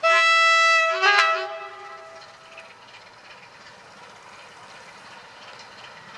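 Diesel locomotive air horn blowing: a loud high note for about a second, then a short lower note joining it, dying away about two seconds in. After that comes the faint running of the freight train as it approaches.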